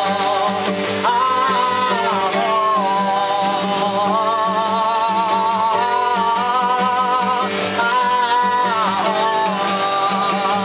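A voice singing long, held notes that slide in pitch, over a plucked guitar.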